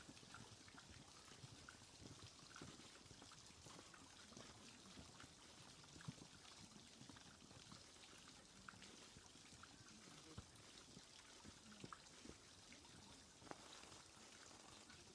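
Near silence: a faint steady hiss with scattered soft clicks and ticks.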